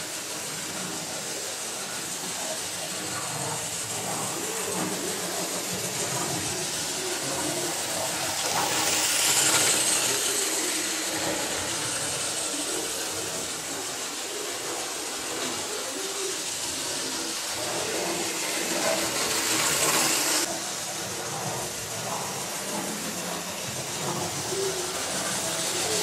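Non-digital (DC-controlled) model railway locomotives running on track: a steady whirring, hissing rumble of motors and wheels that swells louder about nine seconds in and again near twenty seconds, then drops suddenly.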